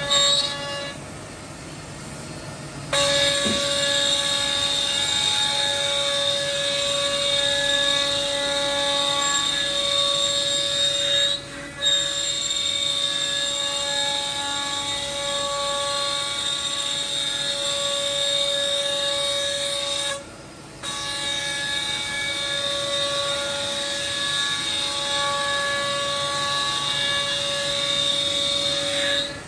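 Spindle motors of a CNC mortiser and tenoner running at speed, giving a steady whine made of several pitched tones. The sound starts sharply about three seconds in and dips briefly twice.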